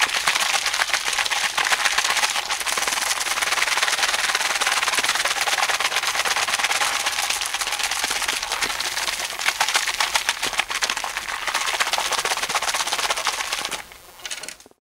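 Bottle of fermenting juice being shaken hard by hand: a loud, dense, fast rattling that runs without a break, dips near the end and then cuts off abruptly.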